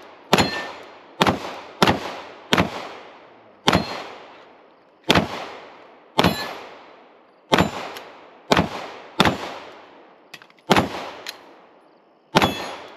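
About a dozen gunshots at uneven spacing, from half a second to a second and a half apart. Some are followed by a short metallic ring, the sound of steel targets being hit.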